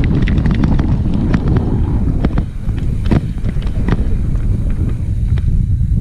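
Wind buffeting the microphone on a downhill mountain bike descending a rocky track, with the bike's frame and chain rattling and knocking in many sharp clacks as it rides over the rocks.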